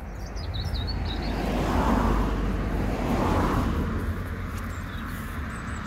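A car passing: tyre and engine noise swelling to a peak two to three seconds in, then fading. A small bird twitters briefly near the start.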